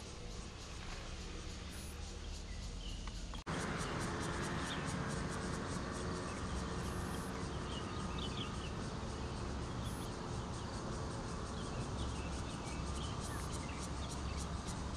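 Outdoor ambience: a steady background of insects, with rapid high ticking and a few short bird chirps. The sound cuts and jumps louder about three and a half seconds in.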